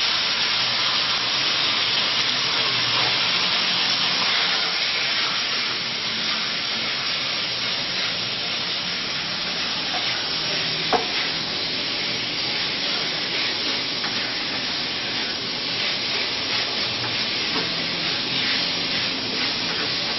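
Chicken pieces and garlic sizzling steadily in hot oil in a wok as they are stir-fried, with faint scrapes and ticks and one sharp clink about 11 seconds in.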